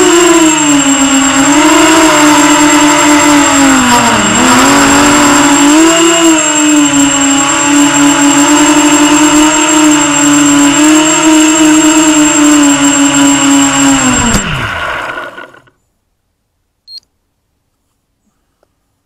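Electric motors and propellers of an FPV quadcopter, heard from on board, whining with a pitch that rises and falls with throttle, then holding a steady low-throttle pitch before winding down and stopping about fourteen seconds in. A faint short beep comes a couple of seconds later.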